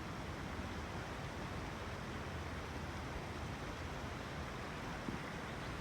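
Steady rushing of storm floodwater runoff after a downpour, an even noise with no breaks.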